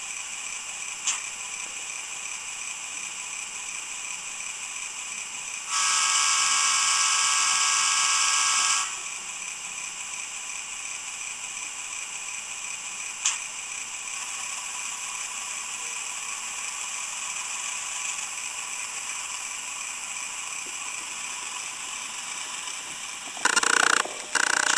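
Digitrax sound decoder playing a GE U33C diesel prime mover sound file through a tiny speaker in an N scale locomotive's fuel tank: a steady idle, high-pitched with almost no low end. About six seconds in, the horn sounds for about three seconds, and two short horn blasts come near the end.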